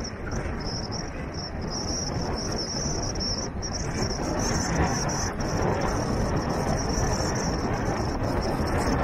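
Vehicle driving along a wet dirt road: a steady rush of tyre and wind noise, a little louder from about halfway in, with a high, wavering buzz running above it.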